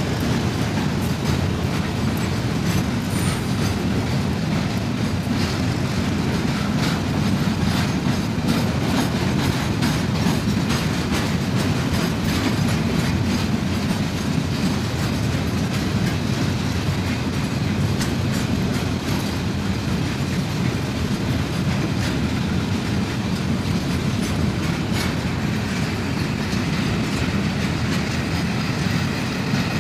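A freight train of container flatcars rolling steadily past close by, its wheels clicking over the rail joints in a continuous clatter.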